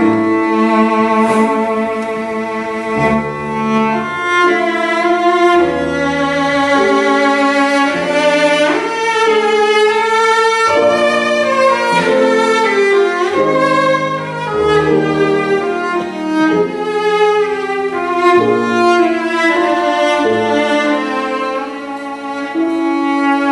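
Cello and grand piano playing together: the bowed cello carries a melody in held notes with vibrato over piano accompaniment.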